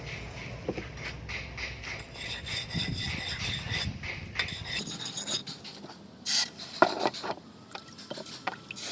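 Repeated hand strokes of a file or rasp scraping during axe restoration work, with a couple of sharper knocks about six and seven seconds in.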